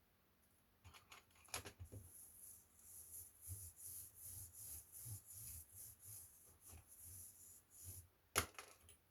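Small plastic parts of an Acer E1-432 laptop being handled and worked on: a run of light clicks and scraping, with a sharp snap about a second and a half in and a louder one near the end.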